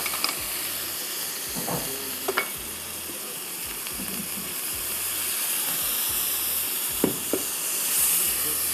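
Spice masala sizzling in hot oil in a non-stick karahi as it is stirred with a ladle, with a few light knocks of the ladle against the pan. Near the end the sizzle swells into a louder hiss as steam rises from the pan.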